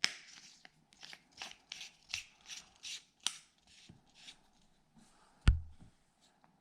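Handling of a metal tactical flashlight while a battery is loaded: a run of short scraping and rubbing strokes, about two to three a second, as the parts are worked together. About five and a half seconds in there is one sharp click with a thump, the loudest sound.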